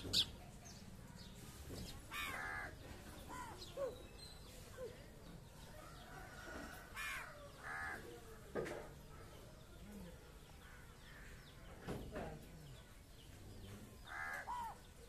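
Crows cawing at intervals, a few short harsh calls spread through, with fainter calls from other birds in between. Two sharp clicks at the very start.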